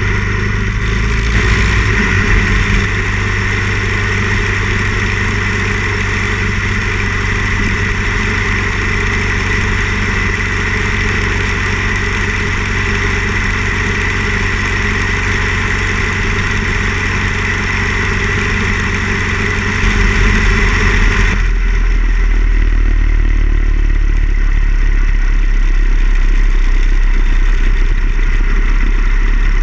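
Harley-Davidson Ironhead Sportster XL1000's V-twin engine running steadily at cruising speed, with a rush of wind over it. About two-thirds of the way through, the wind noise drops away and the engine's low rumble comes to the fore.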